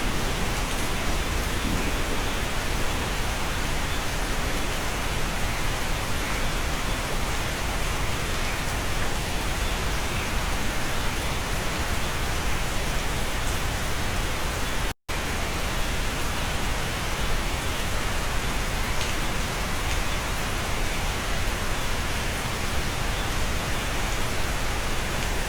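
Steady rain heard from inside a cabin: an even hiss with a steady low rumble beneath. The sound cuts out for a split second about fifteen seconds in.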